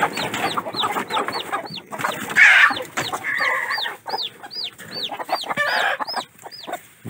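A newly hatched chick peeping rapidly and high, about three peeps a second, distress calls after a hen has stepped on it. Game hens cluck and squawk a few times as they fight over the nest.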